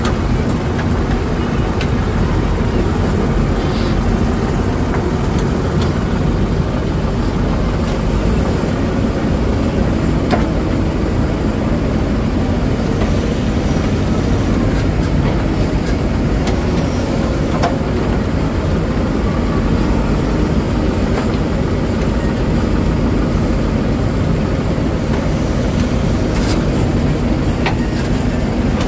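JCB 3DX backhoe loader's diesel engine running steadily under hydraulic load as the backhoe digs and loads mud, with a few short clanks from the bucket and arm.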